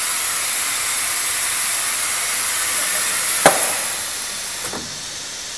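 Multihead ultrasonic welding machine working on an automotive plastic part: a loud, steady high-pitched hiss, with a sharp click about three and a half seconds in, then the hiss drops quieter near the end.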